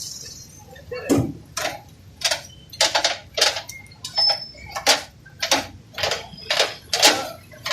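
A run of short sharp knocks or clicks, about two a second and fairly regular, starting about a second in.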